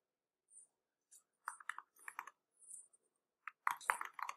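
Computer keyboard being typed on: faint, irregular runs of key clicks, busier near the end.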